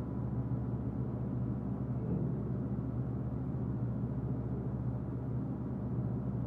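A steady low rumbling drone from a horror film's soundtrack.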